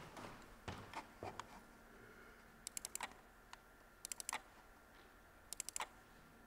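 A few footsteps on a wooden floor, then three short bursts of clicking on a computer keyboard, each four or five quick keystrokes, about a second and a half apart.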